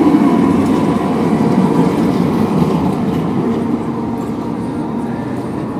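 Tatra T4D tram rolling past on curved street track, steel wheels on rails. The noise is loudest at first and fades steadily as the tram moves away.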